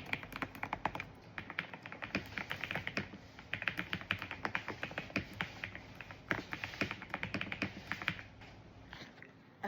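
Typing on a custom mechanical keyboard: quick runs of key clacks with short pauses between them, ending about eight seconds in.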